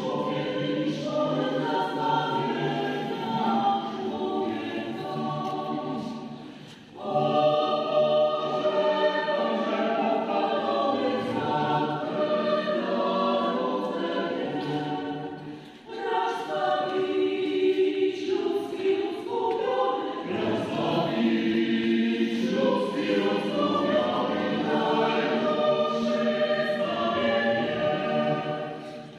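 Choir singing a Polish Christmas carol (kolęda), in long phrases with brief pauses for breath about seven and sixteen seconds in.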